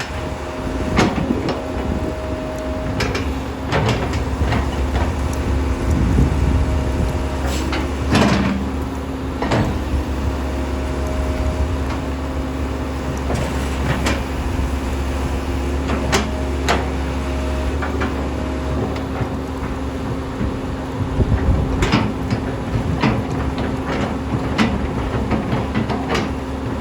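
Kobelco SK200SR hydraulic excavator running steadily with a low engine hum, with many sharp knocks and clanks at irregular intervals.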